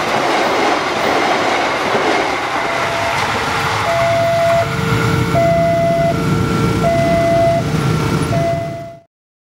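Passenger train coaches passing at speed, their wheels rumbling and clattering on the rails and fading over the first few seconds. A level-crossing warning alarm then sounds a two-tone chime, alternating high and low notes about every 0.7 s, over a low rumble of motorcycle engines pulling away as the barrier lifts. The sound cuts off suddenly near the end.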